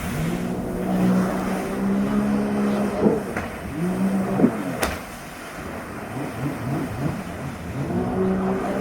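Jet ski engine running, its pitch rising and falling as the rider works the throttle, with a quick run of short revs past the middle. A single sharp click sounds about five seconds in.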